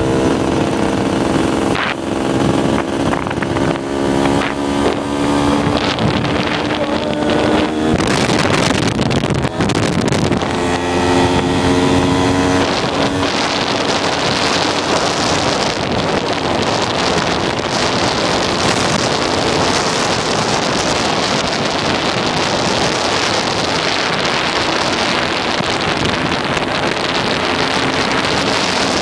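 Motorcycle engine running under way, its note rising and dropping several times through the first half. From about halfway, wind buffeting the microphone takes over and mostly covers the engine.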